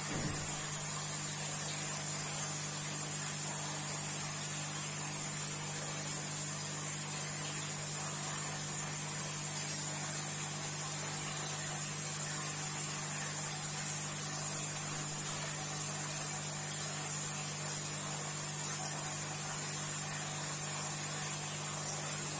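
Aquarium equipment running: a steady low electrical hum with an even hiss above it, unchanging throughout.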